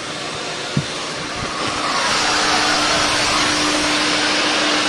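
VacuFlo 560 central vacuum sucking through its hose, a steady airy rush. There is a short knock just under a second in. From about two seconds in, the rush grows louder and brighter, with a steady whistling tone over it.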